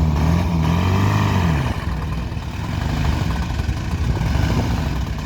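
A vehicle engine revs, its pitch rising and wavering for about the first second and a half, then drops back into a steady low rumble of engine noise.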